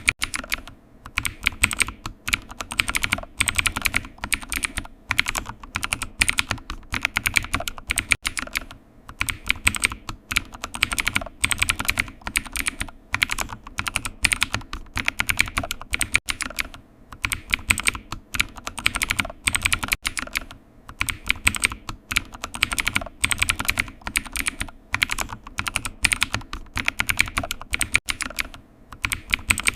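Computer keyboard typing: rapid runs of key clicks, broken by short pauses every second or two.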